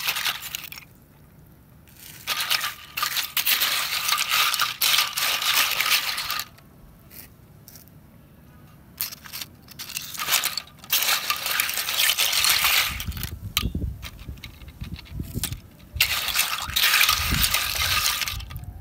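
Wet clam shells clattering and clinking against one another as a hand stirs and sifts through a heap of them in a steel basin. The clatter comes in several bursts of a few seconds with quiet pauses between, and a few dull bumps sound in the later part.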